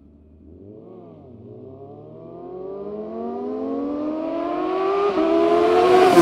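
Sport motorcycles accelerating out of a corner and closing in, their engine pitch climbing steadily and the sound growing louder. There is a brief rev blip about a second in.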